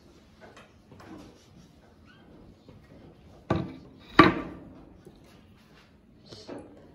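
Two sharp knocks of hard objects being handled or set down, a little over half a second apart. The second is louder and rings briefly, and a few faint clicks come before and after.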